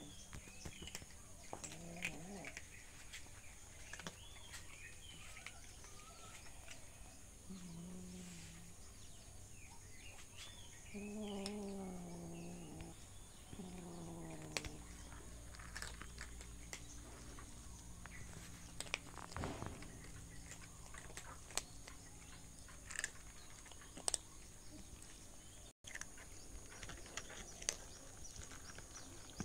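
Domestic cats crunching dry kibble, with short crunchy clicks throughout and a few drawn-out meows in the first half. Small birds chirp faintly in the background.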